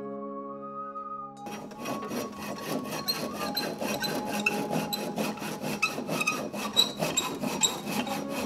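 Hand saw cutting the protruding end of a wooden axe handle and its wedge flush with the axe head, in quick back-and-forth strokes that begin about a second and a half in.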